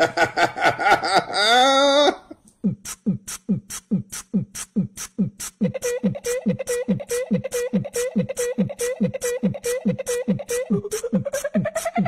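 A wavering, voice-like note for about two seconds, then a music track with a fast, even kick-drum beat, about three beats a second. About halfway through a held note joins the beat and slides upward near the end.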